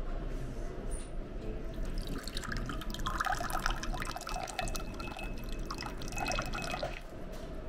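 A drink dispenser's tap pouring a clear liquid into a small glass, splashing and trickling for about five seconds before it is shut off.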